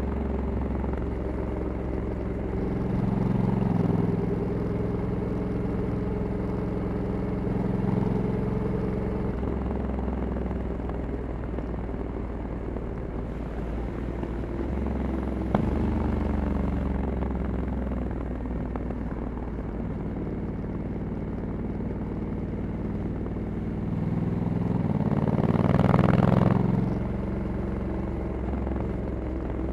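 Honda Africa Twin 1100's parallel-twin engine running on the move on its stock exhaust. The engine note swells and eases with the throttle, with the loudest swell near the end. There is one sharp click about halfway through.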